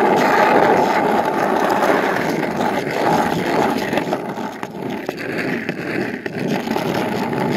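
Skateboard wheels rolling over cracked asphalt: a steady rolling rumble that eases slightly in the second half.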